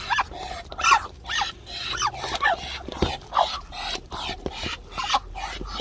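Ducks and chickens calling, a quick series of short overlapping calls.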